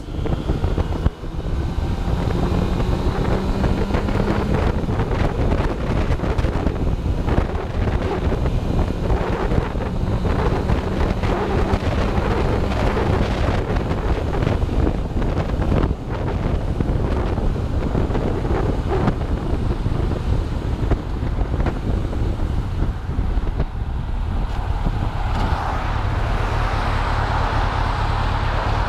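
Suzuki Katana motorcycle being ridden: the engine runs steadily under way beneath a heavy rush of wind over the microphone.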